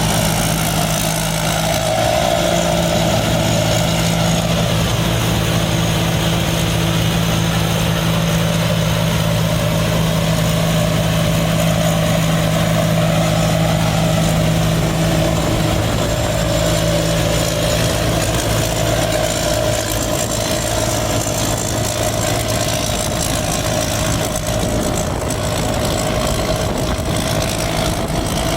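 Large rice combine harvester's diesel engine and machinery running steadily. A deep low hum drops away a little past halfway, leaving a wavering mid-pitched drone.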